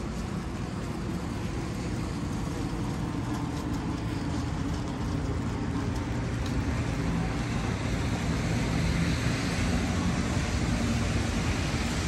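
Road traffic running steadily, a low rumble with tyres hissing on the wet pavement, the hiss swelling in the second half as vehicles go by.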